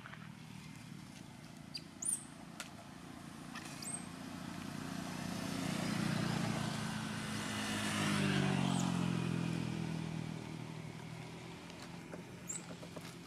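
A motor vehicle's engine passing by: it swells to its loudest about eight seconds in, drops in pitch as it goes past, then fades away.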